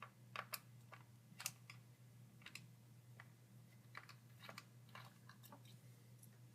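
Faint, irregular clicks and ticks of a small pentalobe screwdriver working the bottom-case screws out of a laptop, with a steady low hum underneath.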